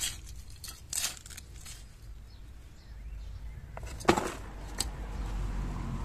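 Small hand fork scraping and scratching through crumbly garden soil, a few scrapes in the first second or so, then a sharp knock about four seconds in and a lighter click just after.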